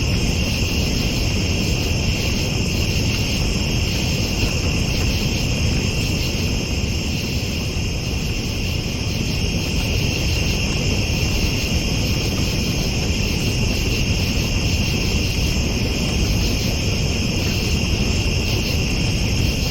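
A steady chorus of night insects, crickets or similar, chirring in several high unbroken bands over a loud, low, steady rumbling noise.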